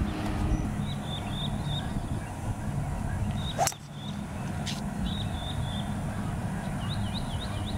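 A 3-wood striking a golf ball off a tee: one sharp hit about three and a half seconds in. Small birds chirp on and off over a steady low hum.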